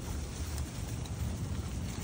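Steady low background rumble, with a faint tick about half a second in.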